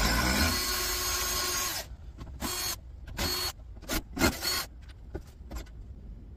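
Cordless drill-driver backing screws out of a metal computer-style case: one run of about two seconds, then four short bursts of the motor. A few light clicks follow near the end.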